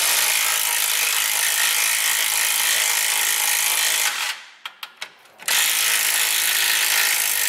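Power wrench spinning a socket on a long extension to run out an exhaust hanger bolt. It runs steadily for about four seconds, stops briefly with a few clicks, then runs again for about three seconds.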